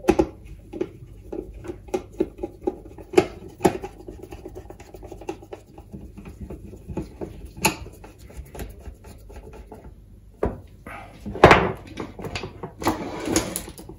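Clicks and knocks of a screwdriver and hands working on a metal ATX computer power-supply case on a wooden workbench, irregular and scattered. Two longer scuffing handling noises come near the end.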